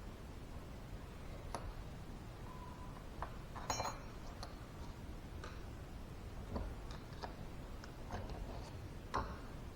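Steel parts of a Vickers V45 vane pump cartridge clicking and clinking against each other as they are handled, about eight separate light taps, the loudest one a little under four seconds in ringing briefly.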